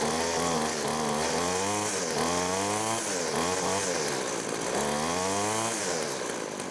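Two-stroke string trimmer engine running after a fuel line replacement, revved up and down about five times with the throttle, then dropping back toward idle near the end.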